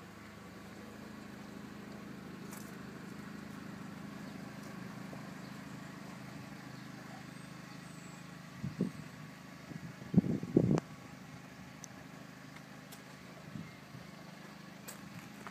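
Steady low hum from a parked Volkswagen New Beetle cabriolet, with a few short, louder noises about nine and ten seconds in.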